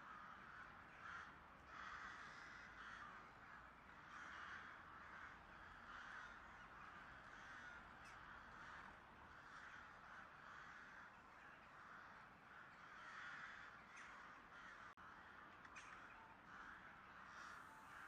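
Crows cawing, faint: short harsh calls repeating every second or so.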